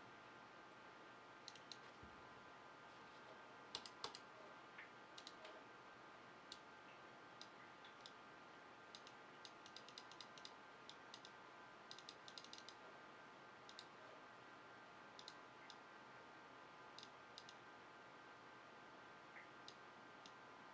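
Logitech G703 gaming mouse being clicked: sharp single clicks at uneven intervals, with quick runs of several clicks between about nine and thirteen seconds in. The left button is the one its owner reports as faulty.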